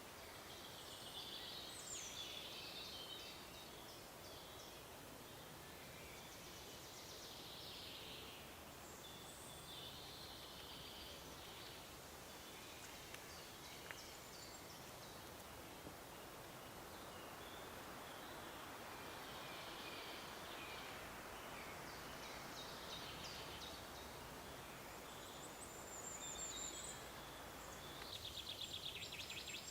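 Faint forest ambience: scattered bird calls over a steady soft background hiss, with a rapid trill near the end.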